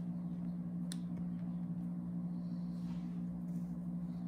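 A steady low hum, with one faint click about a second in.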